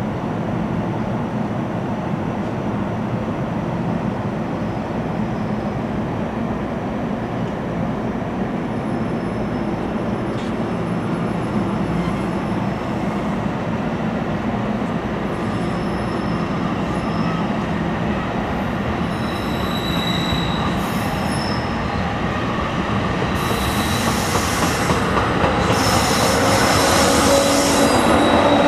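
NJ Transit multilevel coaches rolling out of the station, a steady rumble of wheels on rail with thin, intermittent wheel squeal. It grows louder near the end, with a rising whine as the ALP-46A electric locomotive pushing on the rear draws near.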